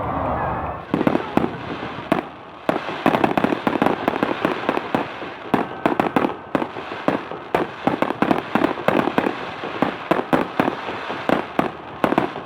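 Fireworks going off in a dense, rapid barrage of overlapping bangs and crackles, several per second, starting about a second in, with a brief lull just after two seconds.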